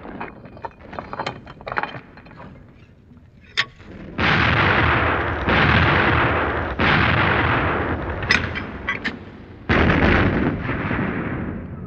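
Artillery fire from field howitzers: after a few seconds of faint scattered clicks, four heavy blasts come about four seconds in, each a sudden boom followed by a long fading rumble. The last comes near the end and dies away gradually.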